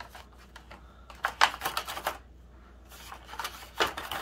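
Thin clear plastic bottle pieces crackling and clicking as a paintbrush is pressed and dabbed against them, in two clusters of quick clicks, one about a second in and another near the end.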